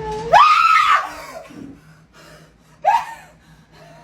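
A person holding a sung note is cut off by a sudden loud, startled scream about half a second in, followed by a second, shorter cry near the three-second mark.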